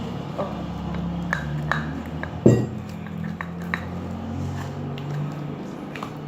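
A spoon stirring glue slime that is starting to thicken in a small pot, with scattered light clicks and scrapes against the pot and one louder knock about two and a half seconds in.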